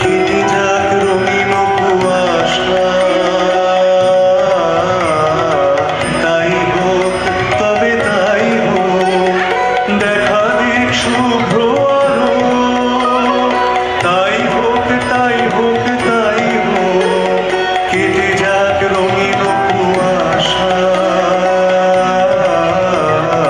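Recorded dance-drama music: a sustained melody with percussion.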